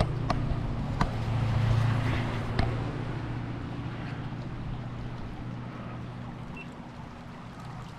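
Motor vehicle engine running steadily with a low hum that swells about two seconds in and then eases off, with a few light clicks near the start.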